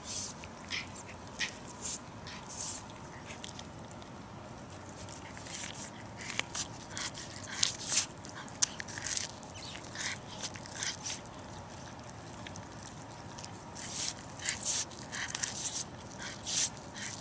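A cat biting and chewing kernels off a corn cob held in a hand: wet, crunchy bites and mouth clicks in irregular clusters, with a lull of a few seconds partway through.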